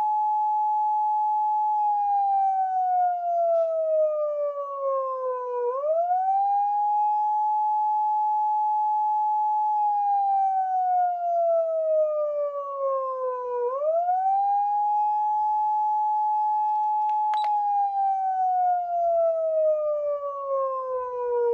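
Hidden siren tone from a Clarion A-600F siren amplifier, selected with its DIP switches. The pitch climbs quickly, holds steady for about four seconds, then slides slowly down for about four seconds, and the cycle repeats about every eight seconds. A short click comes about three-quarters of the way through.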